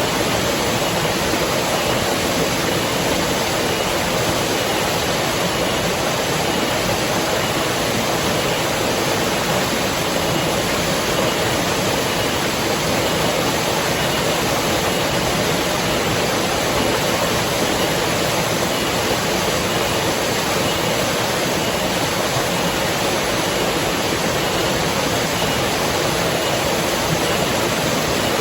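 River water rushing in a steady, even wash with no breaks or changes.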